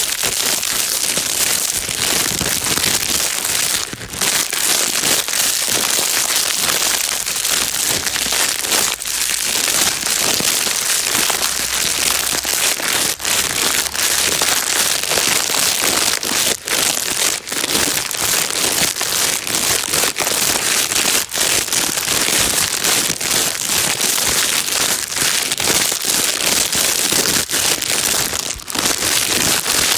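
Plastic bag being crinkled without a break, a steady crackling rustle used as white noise to soothe a crying baby.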